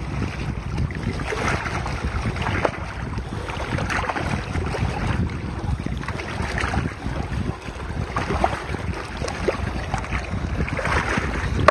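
Water sloshing and swirling in a plastic gold pan, a wash every second or so, as the black-sand concentrate is panned down. Heavy wind buffeting on the microphone runs under it throughout.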